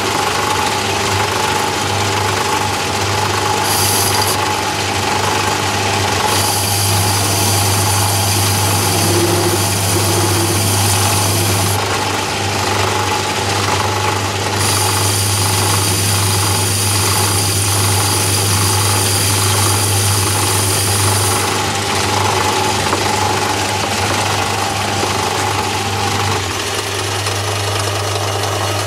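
Myford ML7 lathe running steadily, motor and gearing humming as it takes a light skimming cut along a test bar to check for a turning taper after the bed twist has been adjusted out. A high whine comes in twice, for several seconds each time.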